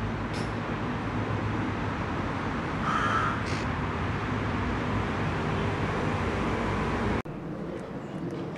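A crow caws about three seconds in, over a steady low background rumble.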